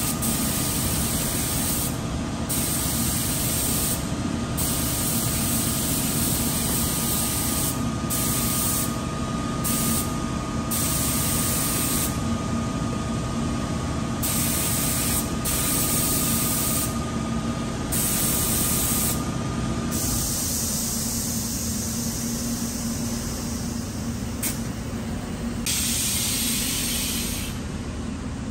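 Gravity-feed paint spray gun hissing as it sprays, the hiss cutting out briefly about a dozen times as the trigger is released between passes, over a steady low hum.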